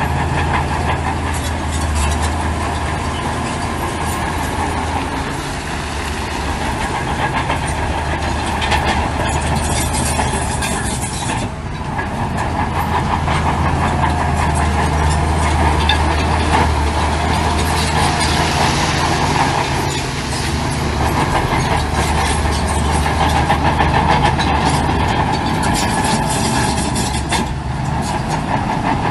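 Crawler bulldozer's diesel engine running steadily under load, with the metallic clatter of its steel tracks. The sound dips briefly about a third of the way in, then carries on.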